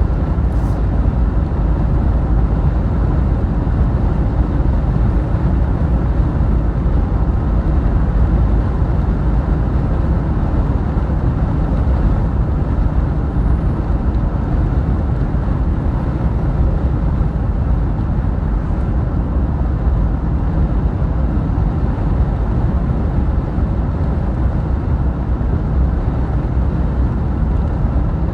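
Steady low rumble of road and engine noise from a vehicle driving at a constant speed, with no changes in pace.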